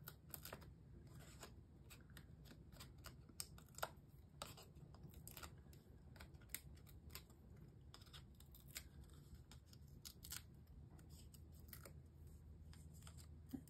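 Faint small clicks and crinkles as the paper release backings are picked and peeled off foam adhesive dimensionals on a paper tag.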